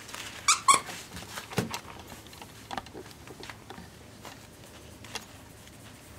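Pembroke Welsh Corgi puppies at play with a plush duck toy: two short high squeaks about half a second in, then scattered soft taps and scuffles.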